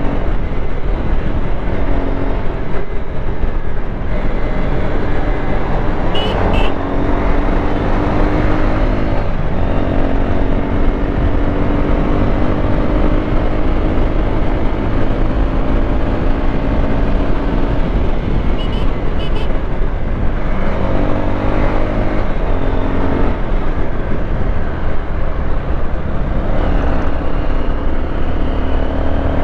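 Motorcycle engine running under way, its note climbing slowly as the bike gathers speed, then dropping about twenty seconds in and climbing again. Steady wind rush on the microphone lies under it.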